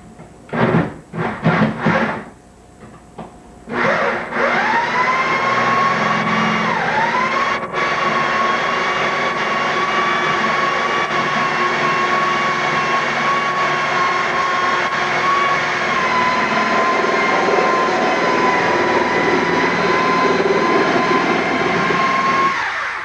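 An electric motor switched on in a few short bursts, then spinning up and running steadily with a high whine for about 18 seconds before cutting off suddenly.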